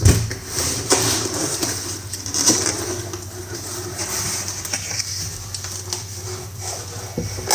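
Cardboard box and packaging being handled and opened, with rustling and scattered light knocks.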